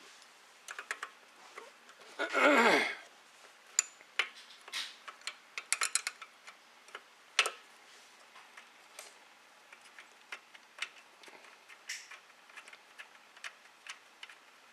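Irregular metallic clicks and ticks from a ratchet and wrench loosening the carburetor mounting bolts on a snowblower engine. About two seconds in comes a brief, louder vocal sound.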